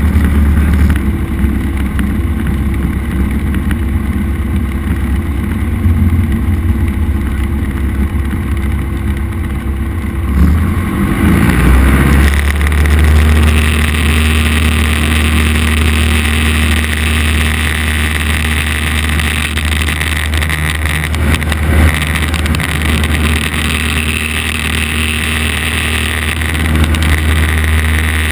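Cessna 172's piston engine and propeller heard from inside the cabin, a steady drone that is brought up to full power about twelve seconds in and then holds there, as for the takeoff roll.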